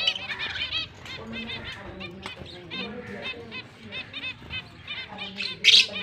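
Lovebirds chattering: quick runs of short, high chirps, repeated throughout, with one sudden loud, harsh burst near the end.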